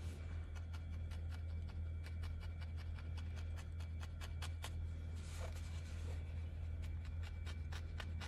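Felting needle stabbing repeatedly into wool roving, quick light ticks at roughly three or four a second, as the fibres are poked down and matted into shape. A steady low hum sits underneath.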